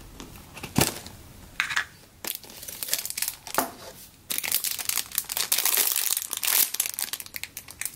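Clear plastic bag crinkling as a squishy toy inside it is handled and squeezed, with a single sharp tap about a second in. The crinkling is sparse at first and turns dense and continuous from about halfway through.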